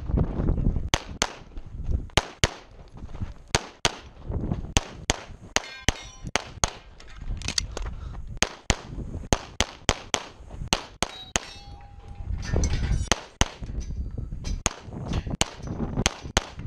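Walther Q5 Steel Frame 9mm pistol firing fast strings of shots, often in quick pairs, about three dozen in all. Some hits are followed by a short metallic ring from steel targets, and there is a low rumble between strings.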